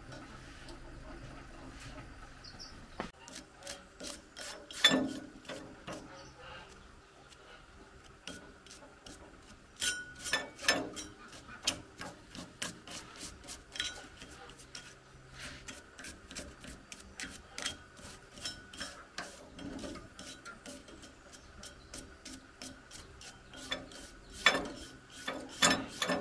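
A flat-bladed screwdriver scraping caked dirt and rust off the ribbed steel rotor drum of an old rice mill, metal rubbing on metal. The strokes come short and irregular with scratchy clicks, starting about three seconds in, with a few louder scrapes now and then.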